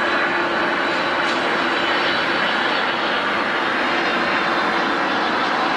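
Jet airliner engines running, a loud, steady rush of noise with a low, even hum underneath.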